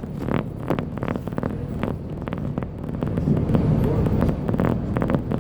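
Steady low rumble of a Meteor hydrofoil's diesel engines under way, growing louder about halfway through, with indistinct voices over it.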